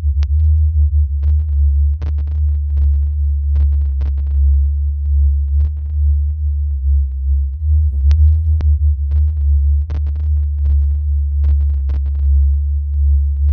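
Synthesized space sound: a loud, steady, deep electronic drone, overlaid with irregular short sharp clicks about one or two times a second.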